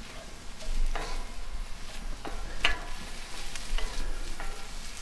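Ground venison sizzling as it browns in a cast iron skillet, stirred with several sharp scrapes and clinks of a utensil against the pan.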